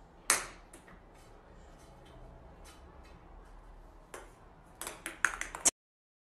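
A small toy clattering on a hard floor as a kitten plays with it: one sharp click just after the start, a few faint ticks, then a quick run of clicks near the end before the sound cuts off suddenly.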